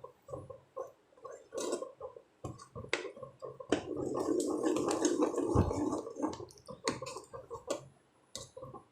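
A ladle stirring a thick, cooking mixture of ground urad dal and coconut milk in a pan: wet gloopy squelching with irregular knocks of the ladle against the pan, thickest in the middle.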